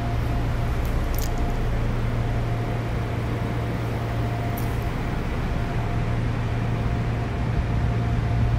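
Odakyu 8000 series electric train standing still, its onboard equipment giving a steady low hum with a faint higher whine that drops in and out. Two light ticks come about one and four and a half seconds in.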